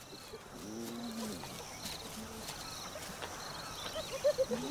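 Spotted hyena vocalising: a low, drawn-out falling moan about half a second in, then a quick run of short, higher calls near the end. A faint, evenly repeated high chirp sounds in the background.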